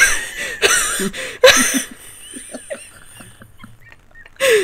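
Several people laughing hard with shrill squeals, loudest in the first two seconds, dying down, then breaking out again near the end.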